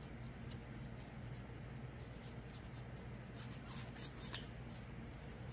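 Faint scratching and light clicks of a small tool working over a cast resin skull, cleaning up little bubbles near the top, over a steady low hum.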